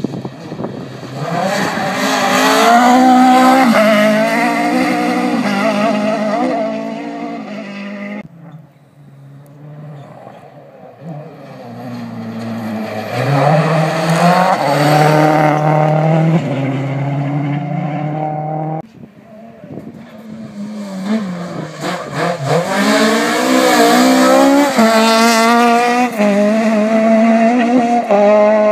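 Rally cars driven flat out: engines revving high and dropping in steps through gear changes as each car comes up and passes. Three such runs are joined, the sound breaking off abruptly about eight seconds and again about nineteen seconds in.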